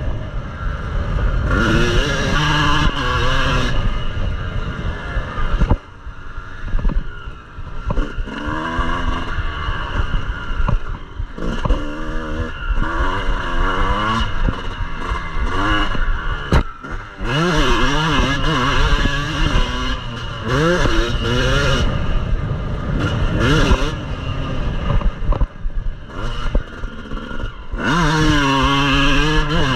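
Yamaha motocross bike's engine under hard riding, its pitch climbing and falling again and again as the throttle is opened and rolled off, with brief drops where it is shut off. A single sharp knock comes a little past the middle.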